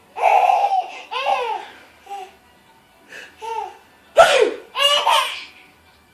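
Young child laughing in several high-pitched bursts, set off by a fake sneeze, a sharp burst about four seconds in.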